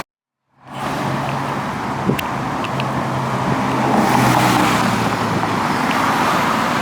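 Motor vehicle running: a steady low engine drone with road noise, swelling a little past the middle.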